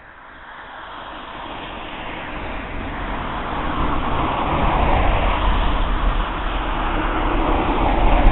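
A road vehicle approaching along the street: tyre and engine noise builds steadily and is loudest near the end.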